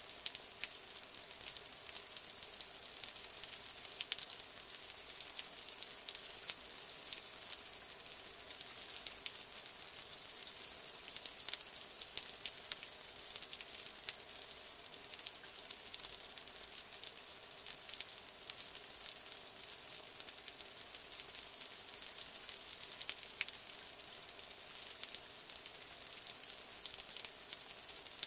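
Steady, fine crackling hiss of water, speckled with many small ticks.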